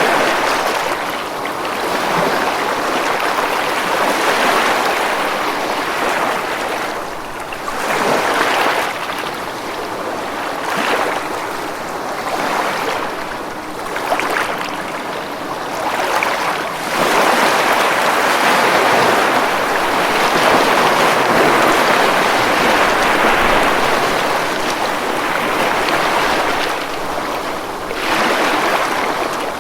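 Ocean waves breaking and washing on a beach, a continuous rushing surf that swells and eases every few seconds, with a long, louder wash through the second half.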